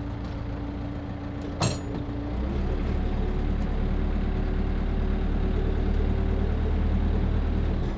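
Landini Powerfarm 95 tractor's diesel engine running, heard from inside the cab. There is a single sharp clunk about one and a half seconds in, and soon after the engine picks up revs and runs a little louder.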